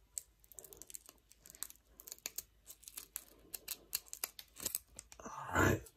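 Scissors snipping along the crimped top of a foil trading-card booster pack, a long run of small irregular clicks and crackles as the blades work through the wrapper. A louder rustle comes near the end.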